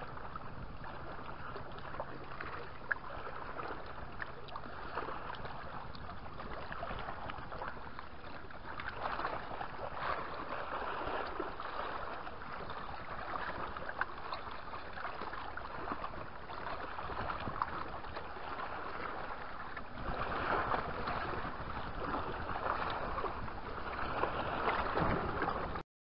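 Steady outdoor wind and lapping-water noise at a rocky lakeshore, with a faint low steady hum under it for the first few seconds. It grows a little louder about twenty seconds in, then cuts off suddenly near the end.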